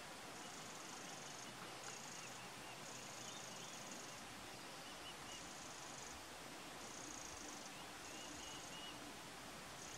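Faint outdoor ambience: a steady hiss with a high-pitched buzzing trill that comes and goes in bursts of about a second, repeated several times, and a few faint chirps.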